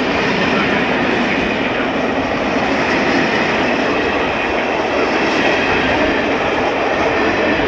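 Passenger coaches of a departing train rolling past, a steady noise of steel wheels on the rails.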